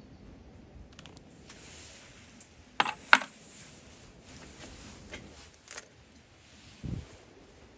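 Coins dropped into a small wooden slatted offering box at a shrine: a brief jingle of coins, then two sharp metallic clinks about three seconds in. A few lighter clicks and a soft thump follow.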